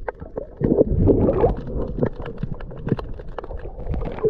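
Underwater sound picked up by a submerged camera: a muffled rumble of moving water with many small crackling clicks scattered throughout, swelling about a second in.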